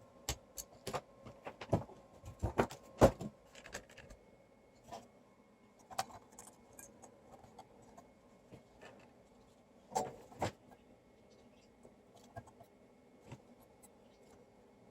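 Irregular sharp clicks and light knocks of small tools and parts being handled during an electronics repair: a quick cluster in the first four seconds, then scattered taps, with a pair about ten seconds in.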